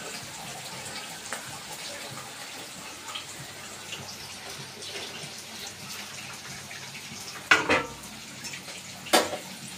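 Vegetables frying in an aluminium kadai on a gas burner, a steady sizzle. Two sharp knocks, about a second and a half apart, come near the end.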